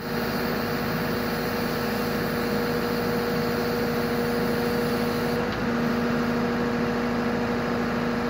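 Hydraulic excavator's diesel engine and hydraulics running steadily as a log grapple is worked, with a constant droning tone over the engine noise and a brief dip about five and a half seconds in.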